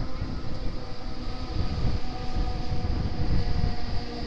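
Jet formation of Aermacchi MB-339 trainers passing at a distance: a steady low rumble from their turbojet engines, swelling and fading in gusts, with faint steady whining tones above it.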